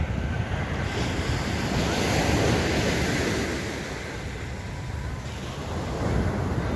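Sea waves breaking and washing up a sandy beach, the surf swelling about a second in and easing off before building again near the end, with wind buffeting the microphone.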